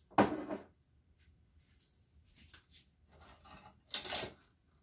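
Kitchen cupboard and drawer handling: a sharp clatter just after the start, light rattling and clicking of items in the middle, and another clatter about four seconds in as a lower cabinet door is opened.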